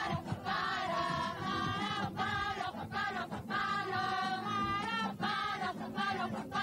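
A choir singing a slow melody, holding notes with vibrato and pausing briefly between phrases.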